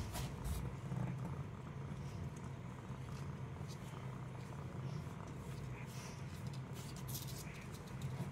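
A cat purring steadily, with a few faint scratchy rustles, several together about seven seconds in.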